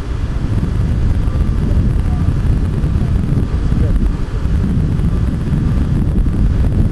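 Wind buffeting the microphone, a loud, uneven low rumble with no siren or engine tone in it.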